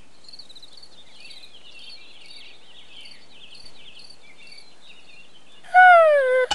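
Faint, steady cricket-like insect chirping. Near the end it is cut into by a loud short cartoon-character voice exclamation that falls in pitch.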